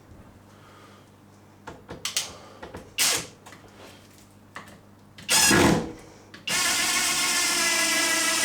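Power drill run in two short bursts, then held running steadily from about six and a half seconds in, with a few light knocks beforehand.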